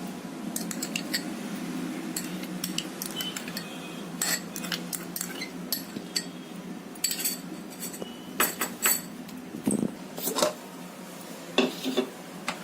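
A spoon clinking and scraping against kitchen dishes in irregular sharp clinks, as curd is spooned in for the lassi.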